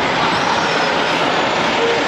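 Heavy recovery machinery running loudly and steadily, with a brief faint squeal near the end.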